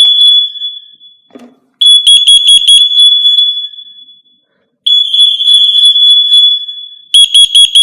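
Interlinked FireAngel Wi-Safe 2 fire and carbon monoxide alarms sounding together in full alarm, set off by carbon monoxide test gas sprayed into a CO alarm's sensor. A loud, shrill beeping tone comes in repeated bursts about every two to three seconds, each burst starting with rapid pulses and then trailing off.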